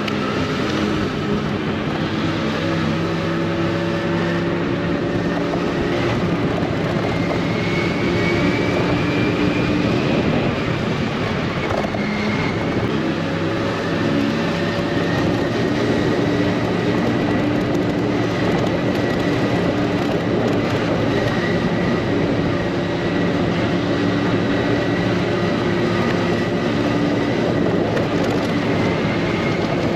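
Honda Dio AF62 scooter's small four-stroke engine running under way, its pitch drifting up and down with the throttle, over a steady rush of wind noise.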